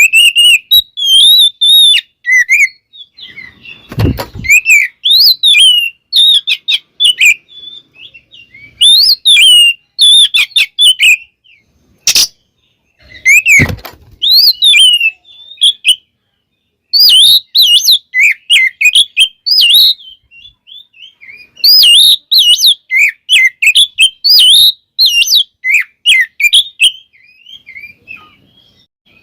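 Oriental magpie-robin (kacer) singing loud, varied phrases of whistles and chirps, in bursts separated by short pauses. Two dull thumps, about 4 s and 14 s in, and a sharp click just after 12 s cut through the song.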